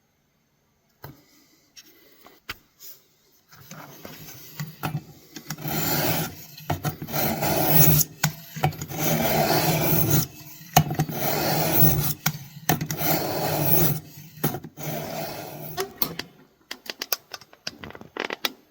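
A pocket knife blade worked against an abrasive in long rasping strokes: a few light scrapes, then about five long strokes of roughly two seconds each with short pauses between, then shorter, lighter scrapes near the end.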